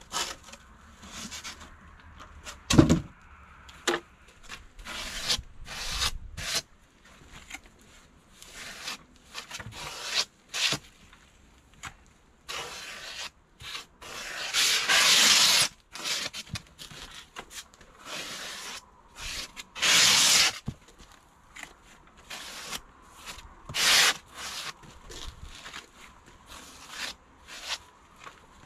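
Expanded polystyrene (EPS) insulation board rubbing and scraping against an EPS guillotine, in irregular strokes with a longer scrape about halfway through, and a thump about three seconds in.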